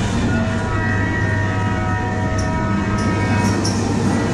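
Oncoming-train sound effect in a ghost train dark ride's tunnel scene: a steady low hum with several sustained horn-like tones layered over it and a few light clicks.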